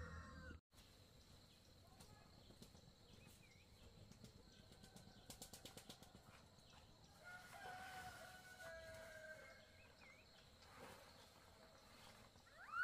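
Faint rural outdoor ambience. A rooster's crow cuts off abruptly under a second in, another crow sounds faintly in the distance a little past halfway, and a brief louder call comes right at the end.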